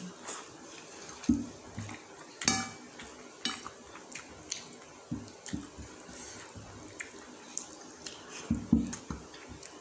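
A person eating rice and meat curry by hand: wet chewing and lip smacks, with fingers scraping and pressing food on a plate. The sounds come as irregular sharp smacks and clicks, a few of them loud.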